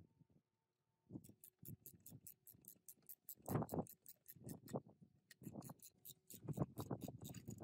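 A socket ratchet clicking in quick, even runs as it turns the nut on a minibike's rear chain adjuster, with a few dull metal knocks in between.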